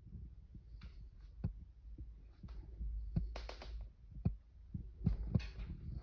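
Handling noise of a handheld camera: a low rumble with irregular soft thumps and clicks.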